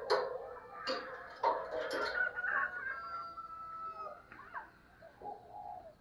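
A spotted dove cooing among other bird calls: several sharp calls in the first two seconds, then a thin held whistle that falls slightly, and softer low calls near the end.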